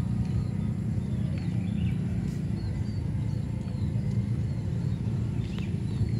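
Roadside traffic: a steady low rumble of vehicles passing on a nearby road.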